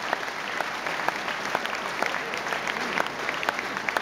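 Crowd applauding: many hands clapping at once in a dense, steady patter.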